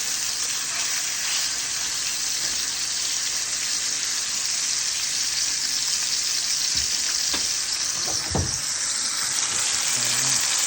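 Ribeye steaks sizzling steadily in a hot pan as a crust forms on them, with a few short knocks in the second half.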